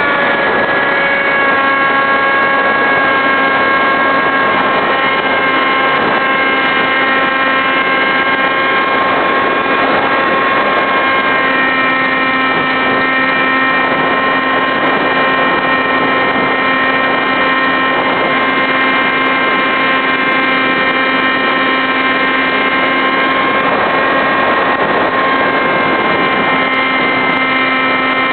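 Electric motor and propeller of a SkySurfer radio-controlled model glider in flight, heard from a camera on the plane: a steady whine with small shifts in pitch as the throttle or airspeed changes, over a rush of wind.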